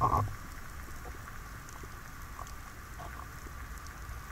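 Underwater ambience heard through an action camera's waterproof housing: a steady low rumble and hiss with scattered faint clicks and crackles. A brief muffled rustle right at the start, likely the diver shifting on the bottom.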